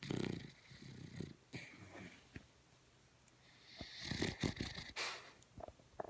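Snoring in uneven breaths, each with a raspy hiss; it starts abruptly, and the loudest breaths come at the start and again about four to five seconds in.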